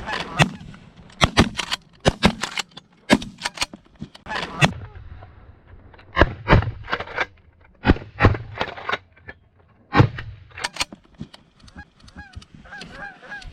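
Shotguns firing a rapid, uneven string of shots, often several within a second, through the first eleven seconds or so, while a flock of geese honks overhead. Only the geese's honking continues near the end.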